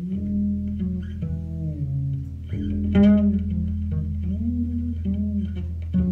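A small jazz group playing: a sustained upright bass line under a held, slowly moving melody from trumpet and saxophone.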